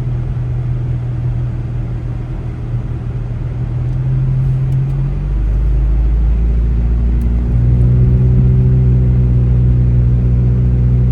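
Car engine and road noise heard from inside the cabin while driving. The engine note changes about five seconds in and, near the end, settles into a louder, steadier hum.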